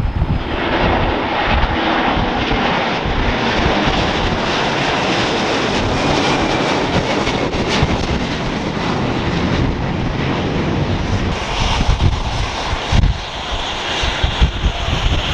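Boeing 767 twinjet airliner climbing out just after takeoff, its two jet engines at takeoff power giving a loud, steady rumble with a crackling low end.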